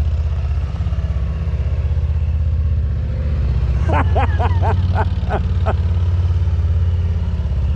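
V-twin motorcycle engine idling steadily with an even low pulse.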